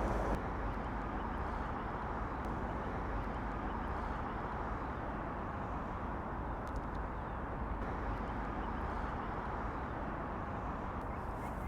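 Steady outdoor urban background noise: an even rumble of distant road traffic, with a few faint ticks.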